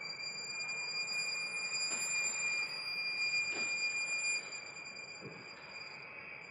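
Solo violin holding one long, high, steady note that drops to a softer level about four seconds in.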